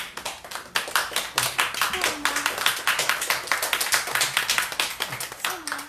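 A small group of people applauding by hand. The clapping is quick and irregular, starts a little under a second in, and stops just before the end.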